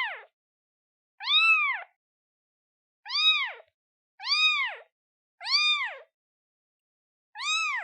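A newborn kitten, a day old, meowing repeatedly to call its mother: five high, thin meows, each about half a second long and rising then falling in pitch, spaced a little over a second apart.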